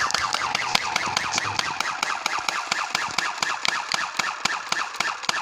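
Battery-powered airsoft-style BB rifle firing on full auto: a fast, steady string of shots, many a second, that keeps going without a break.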